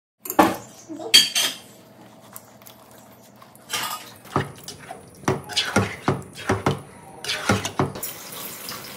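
Kitchen clatter of metal utensils knocking and clinking against cookware: a couple of knocks at the start, then a quick run of about eight sharp knocks, with a steady hiss coming in near the end.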